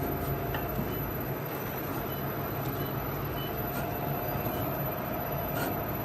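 Snack bar forming line machinery running steadily: an even mechanical hum with a faint held tone and a few light clicks.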